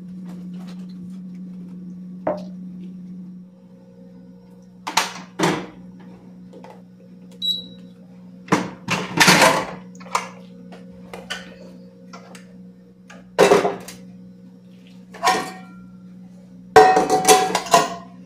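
Pots, pans and kitchen utensils knocking and clattering as they are handled, in a string of separate sharp knocks with a busier burst near the end. A steady low hum runs underneath and drops a little a few seconds in.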